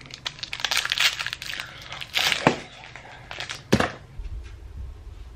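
Plastic snack wrapper crinkling and crackling as it is handled and torn open. After about four seconds this stops and a low steady hum takes over.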